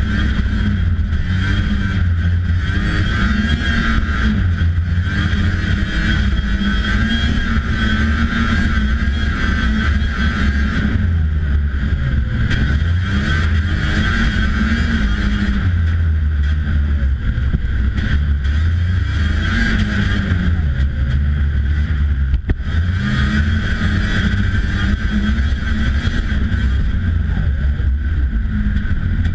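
1992 Polaris Indy Lite 340 snowmobile's two-stroke engine running under way, its pitch rising and falling repeatedly with the throttle.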